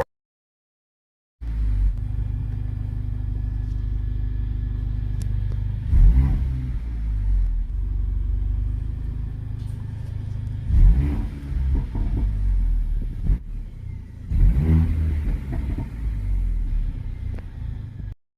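Mercedes-AMG CLA 45's turbocharged 2.0-litre four-cylinder through an AMG performance exhaust, cutting in after about a second of silence and idling with a deep rumble. It is revved sharply three times, about six, eleven and fifteen seconds in, with shorter blips between, crackling and popping as the revs drop.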